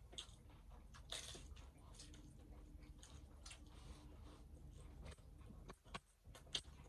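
Faint chewing and crunching of hard-shell tacos, a run of small crackly crunches with a louder one about a second in and another near the end.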